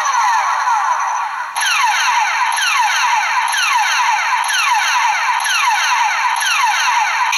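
Electronic sound effect from the Bandai DX Hyper Zecter toy's small built-in speaker: a looping pattern of quick falling tones over a steady high whine. The pattern changes about a second and a half in, then repeats at about two falling tones a second.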